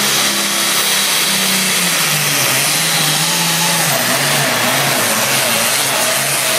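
Competition pulling engine running hard at full throttle under load as it drags a weight-transfer sled down the track. Its pitch steps down twice as the engine is pulled down.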